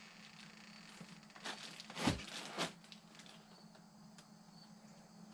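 Cardboard shipping box being handled: a few short scrapes and a thump near the middle, over a steady low hum.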